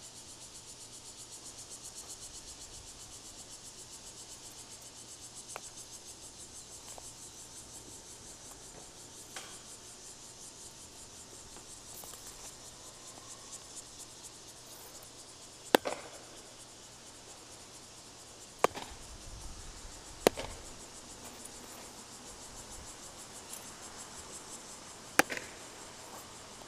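Steady, high-pitched insect chorus, a fast pulsing chirr. Four sharp knocks stand out in the second half and are the loudest sounds.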